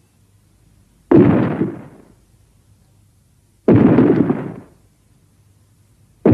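Fan-made monster sound effect for the kaiju Goliath: two heavy, noisy booming bursts about two and a half seconds apart, each hitting suddenly and fading away over about a second, with a third starting at the very end.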